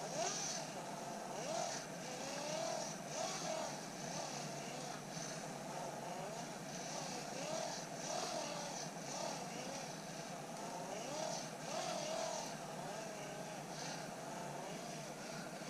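Hand-crank generator charger being cranked steadily by hand, its gears and dynamo whining in a pitch that wavers up and down with each turn of the handle.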